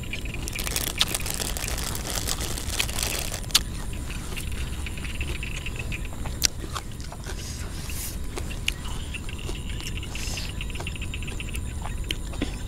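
Close-up chewing of raw food and crunchy vegetables, with scattered crisp clicks. Behind it is a steady low rumble and a pulsing chirr of frogs and insects from the rice field, which fades in and out.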